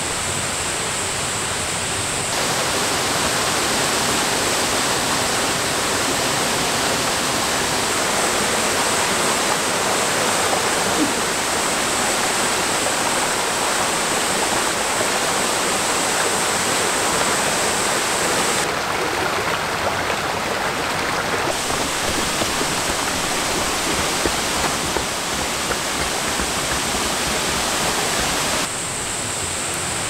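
Mountain valley stream, water rushing steadily, shifting in tone a few times.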